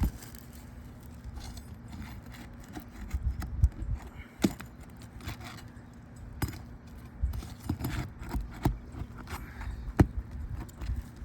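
Scattered sharp clicks, knocks and scrapes as a torn asphalt roof shingle is worked loose and pulled out, over an irregular low rumbling.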